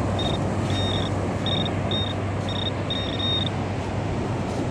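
Handheld metal-detecting pinpointer beeping in short, high-pitched bursts of uneven length as it is pushed through a pile of wet sand, signalling a metal target close by. The beeping stops about three and a half seconds in, over a steady background hiss.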